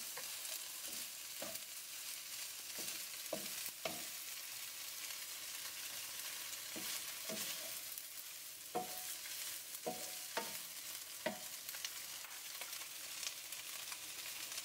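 Shredded chicken, onions and garlic frying in canola oil in a nonstick pan, with a steady faint sizzle. Scattered taps and clinks of utensils are heard, a few of them briefly ringing.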